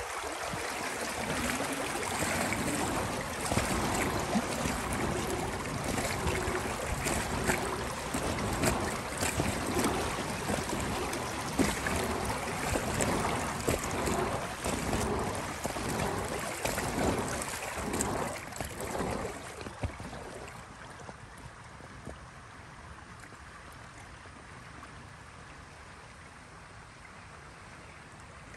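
Kayak paddle strokes splashing in calm river water, a stroke about every second and a half. The strokes stop about two-thirds of the way through, leaving a quieter steady water hiss.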